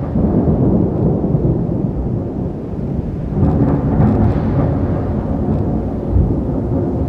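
Thunderstorm: long rolling thunder rumbling low and continuously, swelling again about three and a half seconds in.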